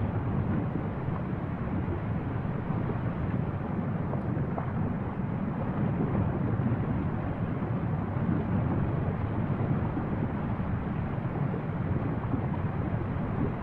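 Steady low rumbling roar from the erupting cone of the Fagradalsfjall volcano as lava fountains and spatters from its crater.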